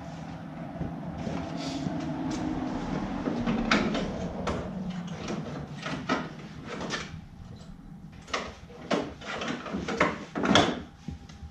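A low rumble that swells and then fades over the first five seconds, followed by scattered knocks and sharp plastic clicks from handling an LED headlight bulb and its plug in the headlight housing, the loudest click near the end.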